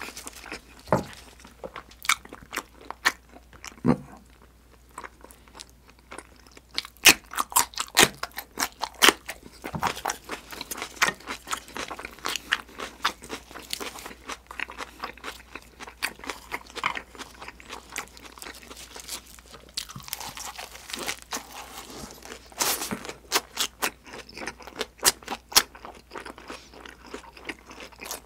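Close-miked chewing of a lettuce wrap with grilled eel, with many irregular, crisp crunches of the fresh lettuce leaves.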